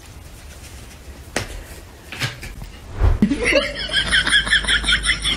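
Fast, high-pitched laughter breaking out about three seconds in and running on, after two soft taps.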